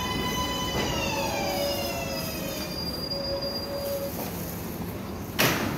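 R142A subway train pulling into the station: its motors whine in several stacked tones that fall in pitch as it slows to a stop, over the rumble of the wheels. A short loud burst of hiss comes near the end.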